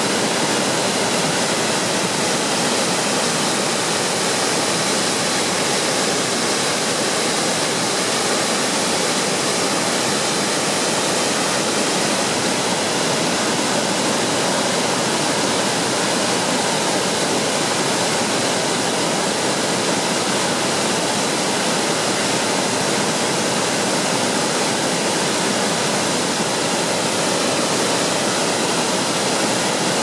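Three-tiered waterfall pouring over rock ledges into a pool: a steady, unbroken rush of falling water.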